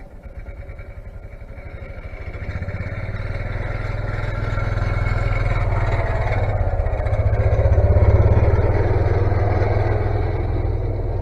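Engine of a snowplow vehicle running with a low throbbing pulse, growing louder as it comes closer and loudest about eight seconds in, then easing off slightly.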